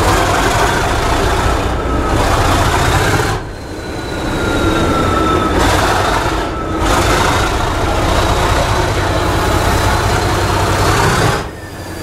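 English Electric Class 37 diesel locomotive 37419, its 12CSVT V12 engine working hard and echoing in a tunnel, heard through an open carriage window together with the train's running noise. A thin high whistle drifts slightly in pitch over the top, and the noise drops briefly twice, about three and a half seconds in and near the end.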